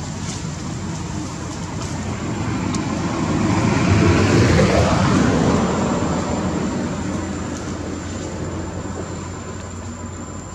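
A motor vehicle passing by: it grows louder over the first four seconds or so, peaks, and fades away with a falling pitch as it goes past.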